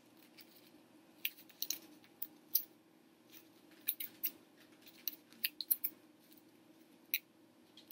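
Tape being wrapped around a plastic spoon handle and popsicle sticks: a scatter of short, faint crackles and clicks at irregular intervals.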